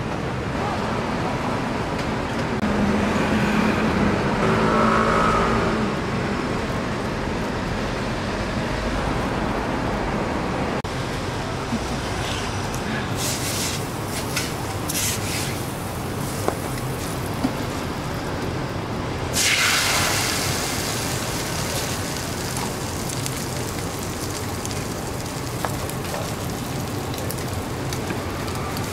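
Hot steel griddle sizzling as oil is spread on it in a metal egg mould, with short sizzles, then a louder sudden sizzle about two-thirds of the way through as beaten egg hits the hot plate and slowly dies down. Under it runs a steady traffic-like background noise, and a humming tone swells a few seconds in.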